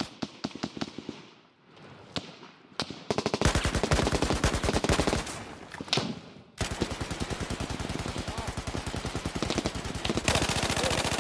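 War-film battle sound effects: a few scattered gunshots, then sustained rapid machine-gun fire from about three seconds in, with a short break near the middle.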